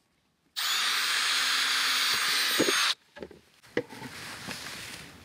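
Cordless drill boring a drain hole through a plastic 5-gallon bucket lid, running steadily for about two and a half seconds and stopping abruptly. A few light knocks of the plastic bucket being handled follow.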